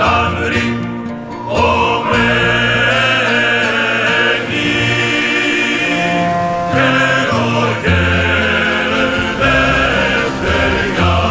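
Choral music: a choir singing sustained chords over instrumental backing, the harmony changing every second or two.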